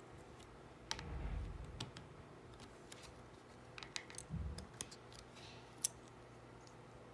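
Small plastic clicks and taps as custom minifigures are handled and set on a plastic baseplate, with two dull knocks, about a second in and around four and a half seconds in, and a sharp click near the end.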